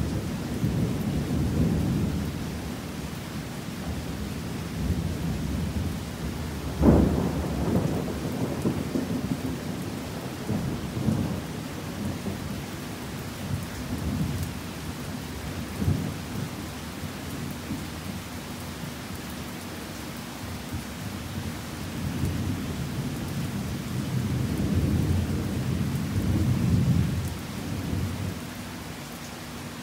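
Thunder rumbling again and again over steady heavy rain, with one sharp clap about seven seconds in, the loudest moment, and further long rolls near the end.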